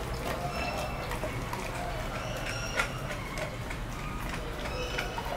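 Pit bull gnawing and chewing on a cow's foot, its teeth scraping and crunching on the tough skin and bone with irregular clicks. There is one sharp crack nearly three seconds in.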